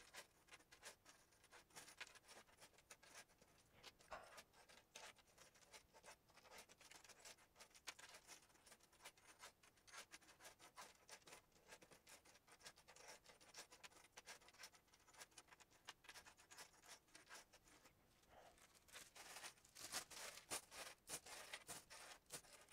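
Faint clinking and scraping of metal swivel clasps being slid across a cutting mat one by one as they are counted by hand, busier and louder near the end.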